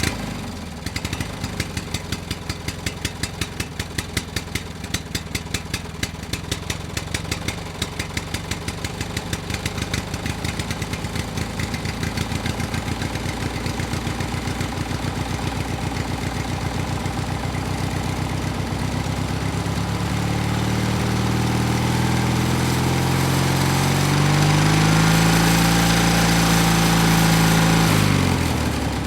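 Two-stroke engine running with distinct, separate firing pops at first. It gradually speeds up, then revs higher with a rising pitch in the last third, peaks, and drops away just before the end.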